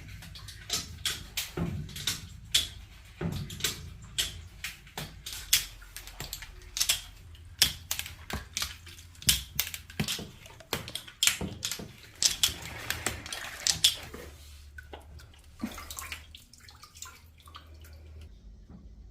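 Irregular clattering clicks and knocks, with a stretch of splashing or running water about twelve seconds in, over a low steady hum.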